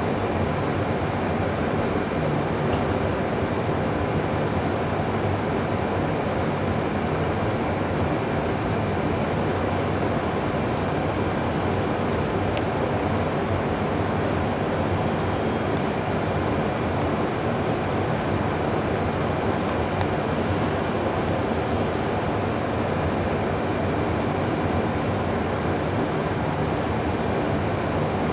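Steady, even rushing hum of an Amtrak Superliner bilevel passenger train standing close by, its cars' air-conditioning and ventilation running, with a faint high steady tone.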